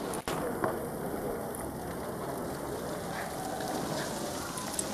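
Steady patter and splash of fountain water falling into a pool, like light rain. It cuts out briefly near the start.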